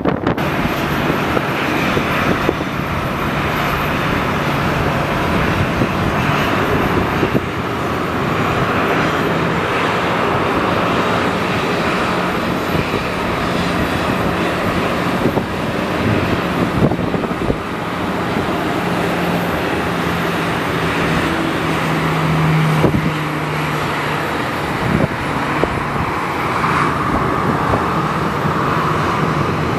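Jet engines of a Boeing 737-800 running steadily on the ground, a continuous roar with a low drone and a higher whine.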